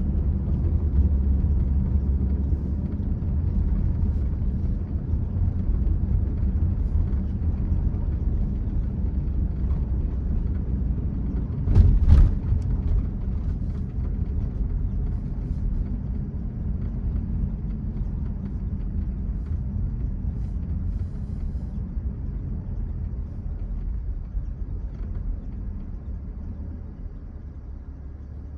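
Steady low rumble of a car driving on snowy roads, with a brief louder thump about twelve seconds in; the rumble eases a little near the end.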